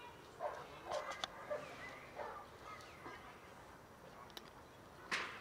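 Cats eating food from a small plastic tub: scattered chewing and clicking sounds, with a short, sharp noisy burst about five seconds in.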